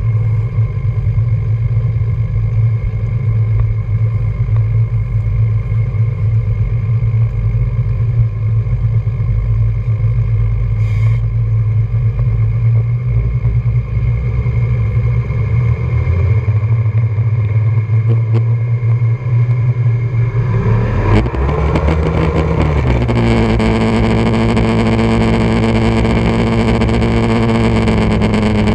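Three Evinrude 300 V6 two-stroke outboard motors running at low throttle with a steady low hum, then opened up about 21 seconds in, their pitch rising over a couple of seconds to a steady high-revving tone. They are taking up the load of a long line of towed water-skiers.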